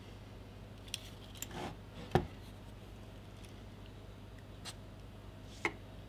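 Scattered light clicks and taps from soldering tools working the pins of a circuit board, with one sharper knock a little after two seconds in, over a faint steady low hum.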